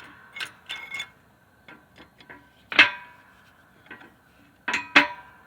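Steel sockets, washers and a wheel stud clanking against a brake drum hub on a hydraulic shop press: a string of sharp metallic knocks, each with a brief ring. The two loudest come about three seconds in and near the end.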